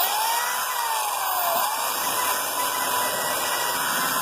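Power drill with a 38 mm hole saw cutting through a plastic panel. The motor whine dips briefly about one and a half seconds in, as if under load, then holds steady.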